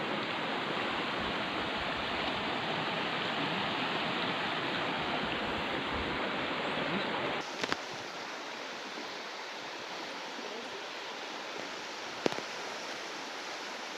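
Steady rush of river water. About halfway through it drops suddenly to a quieter, thinner flow, and a few sharp clicks or knocks follow, the loudest near the end.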